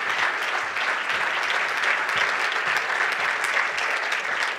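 Audience applauding: many hands clapping at an even level.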